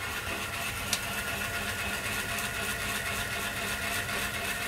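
Steady low mechanical hum, like a small motor running, with one short click about a second in.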